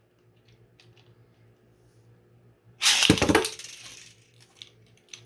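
A few faint plastic clicks, then about three seconds in a sudden loud Beyblade launch: the spinning tops hit the plastic stadium and clatter, dying down over about a second.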